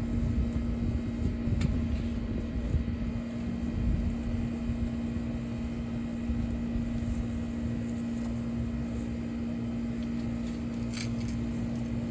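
Steady mechanical hum at one low pitch over a low rumble, with a few faint clicks and scrapes from digging in soft soil.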